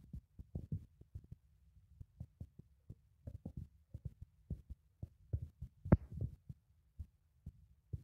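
Handling noise: irregular soft low thumps and bumps on the microphone, a few each second, with one sharper knock about six seconds in.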